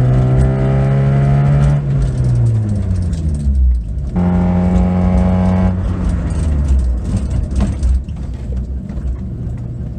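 Honda Civic EK hatchback's four-cylinder engine revving up under acceleration and then falling in pitch as the car slows, twice over. These are repeated hard stops to bed in new brake pads.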